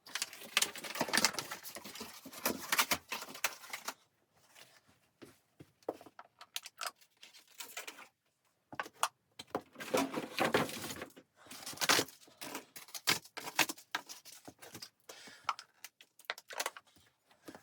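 Objects being handled in a small room: an irregular run of clicks, knocks and rustles in clusters, with short pauses between them.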